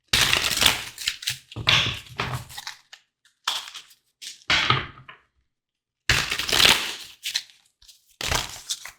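Tarot cards being shuffled and handled: six separate bursts of crackly, rustling noise with short silences between them.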